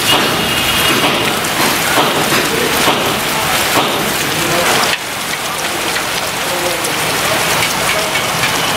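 Heavy rain falling steadily, a dense even hiss of the downpour. It becomes slightly quieter about five seconds in.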